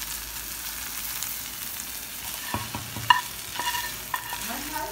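Shredded chicken sizzling in a frying pan as a spatula stirs it. From about halfway through, the spatula clicks and scrapes against the pan as the chicken is scraped out onto a plate, with one sharp click a little after the middle.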